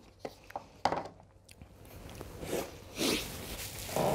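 A few light clicks and taps as a paper instant-ramen cup and chopsticks are set down, with chewing of the last bite. Then two breathy huffs and the rustle of a tissue wiping the mouth after eating very spicy noodles.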